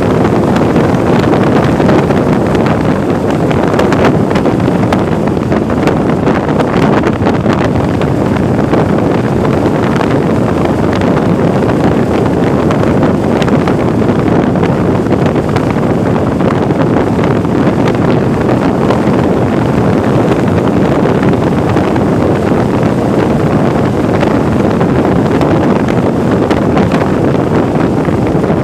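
Steady, loud wind rush on the microphone of a rider moving along on a Vespa 300 scooter, with no clear engine note through it.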